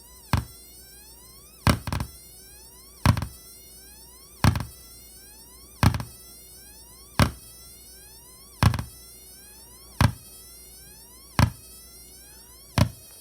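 Electronic noise from a device: a sharp pop about every 1.4 seconds, each followed by a quick rising chirp, over a steady hum. It repeats evenly ten times, the second pop doubled.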